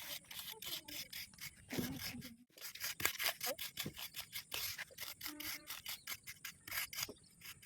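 Rapid, irregular scraping and rubbing strokes, with a brief break about two and a half seconds in.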